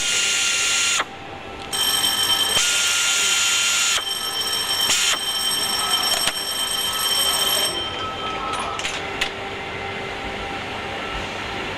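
Assembly-line machine whine made of several steady high tones, stopping about a second in, starting again a moment later and running until near the end, where a few sharp clicks follow. Steady factory background noise lies under it.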